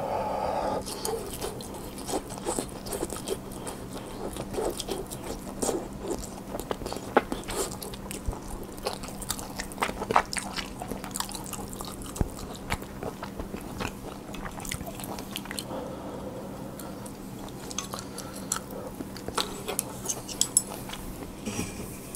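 Close-miked open-mouth chewing of tteokgalbi, a Korean grilled minced-beef patty: wet smacking with many sharp, irregular mouth clicks.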